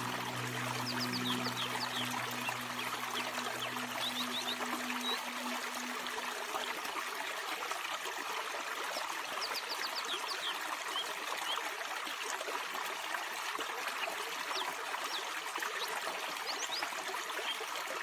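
A small stream trickling and splashing down over rocks in a steady rush. Soft music dies away in the first few seconds, and short high chirps come now and then over the water.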